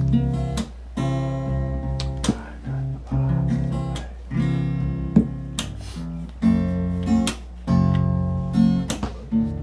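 Acoustic guitar strumming chords that change about once a second.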